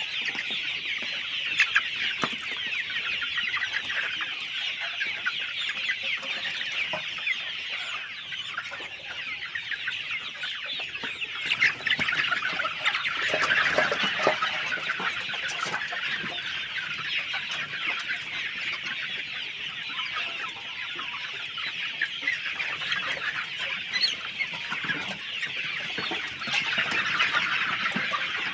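A large flock of chickens clucking and calling all at once, a steady dense chatter, with a few sharp knocks in between.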